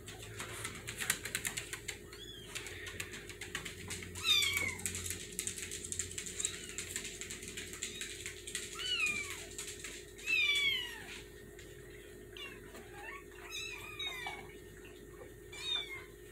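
Young kittens mewing: repeated high, thin mews that fall in pitch, several of them in quick succession near the end. Early on, a scratchy rustling of small claws scrabbling on a blanket in a plastic tote.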